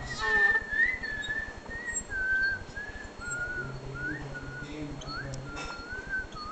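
A person whistling a slow tune, one clear note after another with upward slides into some notes. It opens with a baby's brief cry, the loudest sound here.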